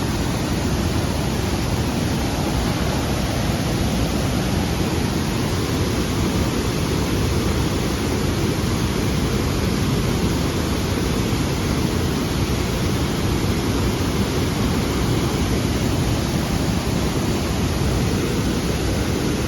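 Waterfall pouring: a loud, steady rush of falling water, heaviest in the low range, with no breaks.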